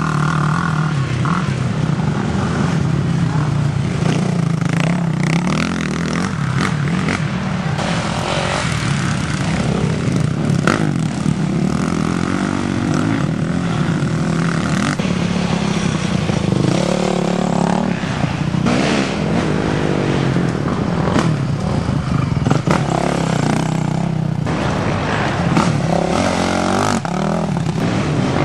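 Several quad (ATV) engines running and revving together during racing, their pitches rising and falling over a steady low drone.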